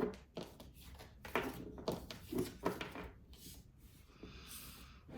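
Tarot cards being handled and shuffled: a string of soft taps and clicks, with a short sliding rustle near the end.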